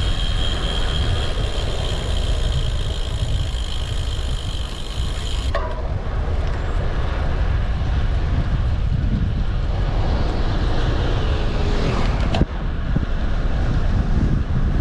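Wind buffeting the microphone and road noise from a moving bike, a steady low rumble. A steady high whine runs for the first few seconds. The sound changes abruptly about five seconds in and again near twelve seconds.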